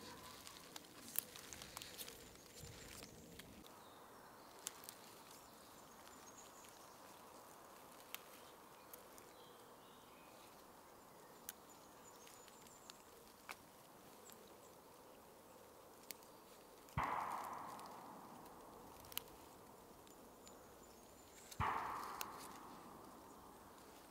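Wild garlic leaves being picked by hand among woodland plants: faint scattered snaps and clicks over a quiet background, with two louder rustles a few seconds apart near the end.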